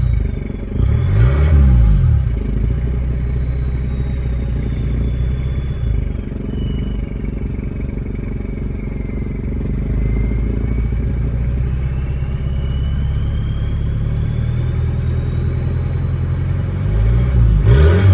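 Toyota 2L-TE four-cylinder turbodiesel running near idle with no exhaust pipe fitted, its turbocharger whistle loud and unmuffled. The high whistle sinks slowly to about half its pitch and climbs back as the revs drift, with a brief rev swell about a second in.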